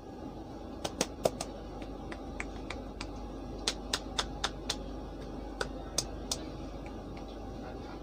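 Barber's hands striking the head during a head massage: a run of sharp slaps and snaps in loose bursts of three to five, over the steady low rumble of the moving train.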